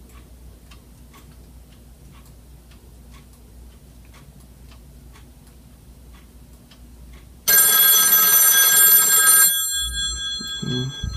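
A telephone rings loudly for about two seconds, starting about three-quarters of the way in, and the ring dies away over the next second. Before it there is only a faint low hum with light ticking about twice a second.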